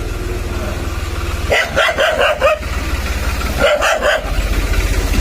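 A dog barks in two quick runs, about five barks a second and a half in and a few more about four seconds in, over a steady idling engine.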